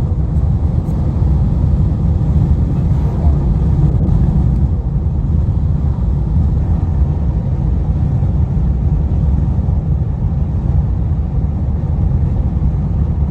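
Steady low rumble of a car driving along the highway: road and engine noise.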